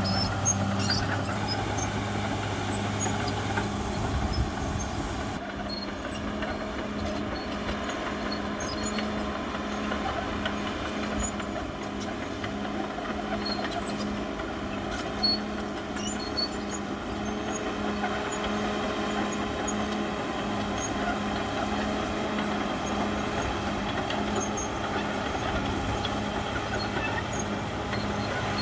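CAT D6R XL bulldozer's diesel engine running steadily under work, with an even pulsing throb and a few scattered light clanks.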